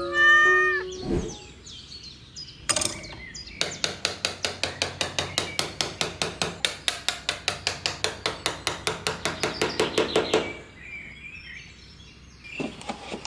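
Rapid, even tapping: sharp strikes at about seven a second, starting a few seconds in and stopping abruptly about three seconds before the end. The last notes of background music fade out at the start.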